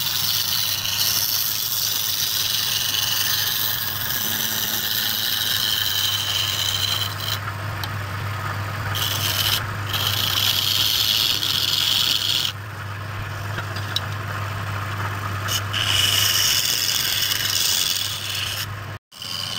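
A hand-held turning chisel scraping and cutting a spinning wooden blank on a wood lathe: a harsh, steady scraping hiss over the lathe motor's low hum. The scraping breaks off a few times as the tool comes off the wood, longest for about three seconds past the middle. The sound cuts out briefly near the end.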